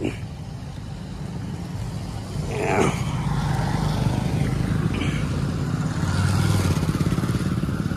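Motor scooters and motorcycles running past close by on a dirt road, a steady engine drone that grows louder about two and a half seconds in. A short falling tone sounds near three seconds in.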